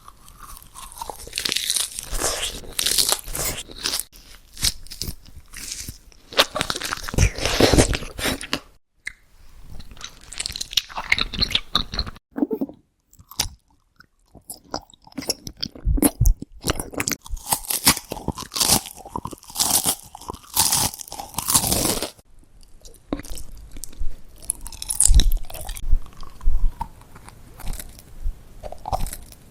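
Close-miked ASMR eating: crisp food crunching between the teeth as it is bitten and chewed, in bouts broken by a few short pauses.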